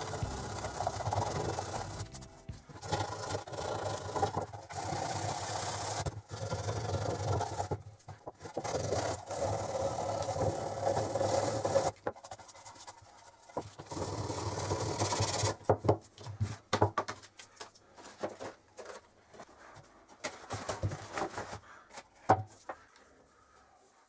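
Sandpaper rubbed back and forth over a small painted metal tin, scuffing off its red paint. There are long stretches of steady scraping, then shorter, separate strokes from about two-thirds of the way in.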